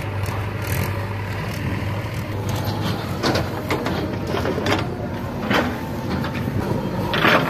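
The diesel engine of a JCB 3DX backhoe loader runs steadily under load. A few sharp knocks and clatters come from about three seconds in, as soil from the bucket drops into the tractor's steel trolley. The loudest comes near the end.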